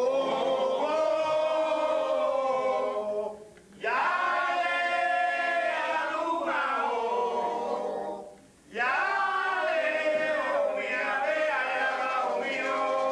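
Rumba singers singing together without drums: long held, sliding sung phrases in three stretches, with brief breaks about three and a half and eight and a half seconds in.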